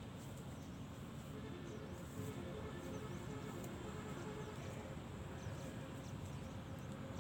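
Outdoor ambience: small birds chirping now and then over a low steady rumble, with faint music in the distance from about a second and a half in.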